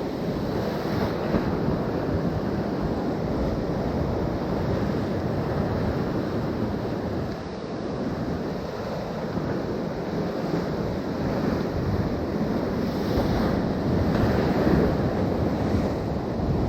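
Ocean surf washing in steadily against the shore, with wind buffeting the microphone.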